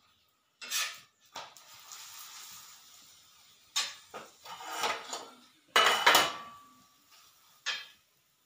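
A steel spatula knocking and scraping on a flat griddle pan (tawa) while a paratha is turned: several sharp metal clatters, the loudest about six seconds in with a brief ring after it, and a soft hiss between the earlier knocks.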